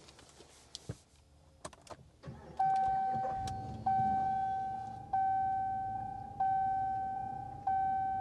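A pickup truck's electronic warning chime at startup: a single clear tone struck five times about every second and a quarter, each ringing out and fading. A few sharp clicks come just before the chimes start, and a low rumble runs underneath them.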